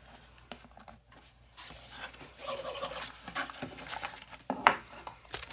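Stationery packaging being handled during an unboxing: paper and plastic rustling and crinkling, with scattered light clicks and one sharper tap near the end.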